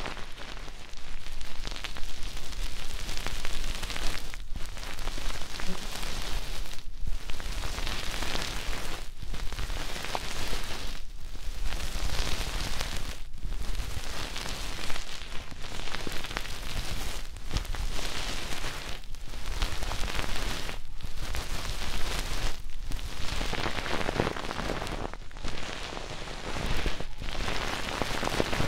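Dense crackly rustling of ASMR triggers worked right against a binaural microphone's ears, in stretches of about two seconds broken by short pauses.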